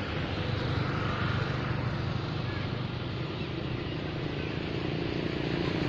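Road traffic: motor vehicle engines running steadily as vehicles, motorcycles among them, pass along the road.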